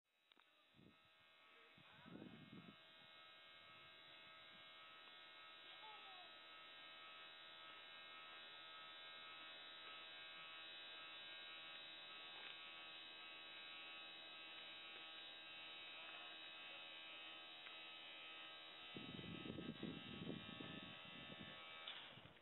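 Motor of a dump truck's automatic tarp system whining steadily as it swings the aluminium arm over the body to spread the mesh tarp and back. The whine fades in at the start and stops sharply near the end, with brief low rumbling about two seconds in and again a few seconds before it stops.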